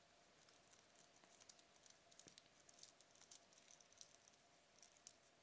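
Near silence, with faint scattered soft ticks and rustles of a thin earphone cable being handled and untangled, over a faint steady hum.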